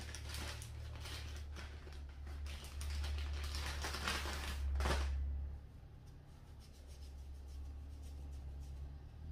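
Rustling and scraping of small objects being handled for about the first five seconds, loudest just before it stops, over a steady low hum.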